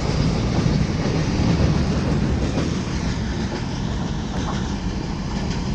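Container freight train's wagons rolling past on the rails. The noise grows a little fainter after about half way as the end of the train, the brake van, goes by and moves away.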